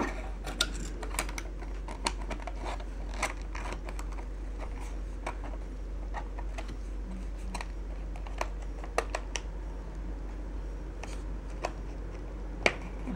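Irregular small clicks and taps of plastic parts being handled and pressed into place on the underside of a ThinkPad X61 laptop, over a low steady hum.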